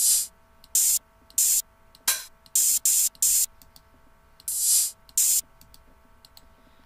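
Open hi-hat samples previewed one after another, about eight short hissing cymbal hits with gaps between, some cut off early and one near the end ringing longer. Faint mouse clicks fall between the hits.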